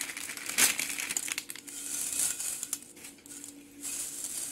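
Dry ragi vermicelli rustling and crackling as it is tipped from its plastic packet into a stainless steel bowl and broken apart by hand, with the packet crinkling. The rustle is busiest in the first couple of seconds, with a sharp crackle about half a second in, and thins out toward the end.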